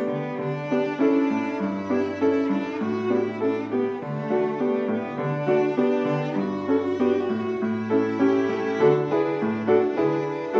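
Cello and grand piano playing together: the cello draws long bowed notes in its low range while the piano plays an accompaniment of struck notes.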